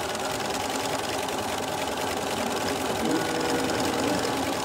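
Bernina B 335 sewing machine running steadily, stitching a line of topstitching along the edge of a fabric headband.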